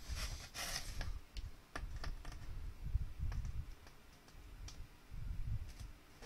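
Cardboard box being handled and held open: a brief rustle near the start, then scattered light clicks and taps of fingers on the cardboard over low dull bumps.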